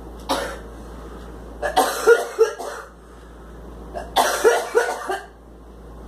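A girl in a coughing attack: a single cough, then two runs of several quick coughs about two seconds apart.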